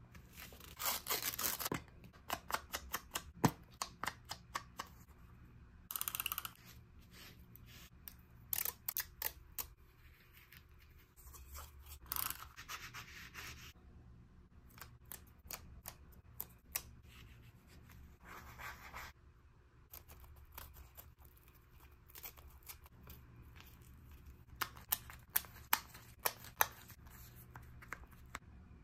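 Journaling paper-craft sounds: scissors snipping paper and paper being rubbed and handled, with many sharp clicks and four longer scraping strokes of about a second each.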